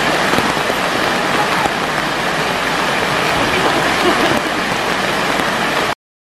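Steady rush of a mountain stream running over rocks in the rain; it cuts off suddenly near the end.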